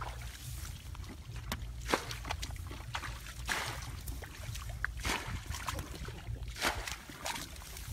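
Hands splashing and sloshing in shallow muddy water several times, over a steady low rumble.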